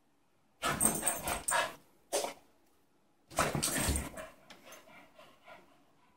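Small dog digging and scrambling in bed covers: three bursts of blanket rustling with a soft thump, the last trailing off into lighter rustling.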